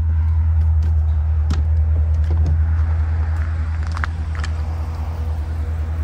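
Class C motorhome's Ford 7.3-litre V8 engine idling, a steady low hum. A few light clicks and knocks sound over it around the middle.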